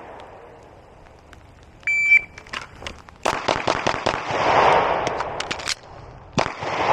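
A shot timer beeps, and about a second and a half later a 9mm Glock pistol fires five quick shots roughly a fifth of a second apart. After a reload pause of about two seconds, one more shot comes near the end.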